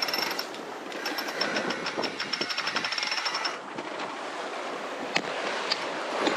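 Fast, even mechanical clicking for about three and a half seconds, then stopping, leaving a steady rushing noise with a few sharp clicks.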